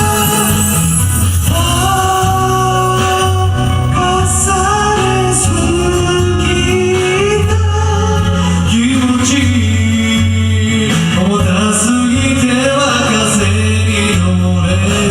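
Karaoke backing track of a J-pop ballad playing steadily, with a singing voice carrying the melody over it.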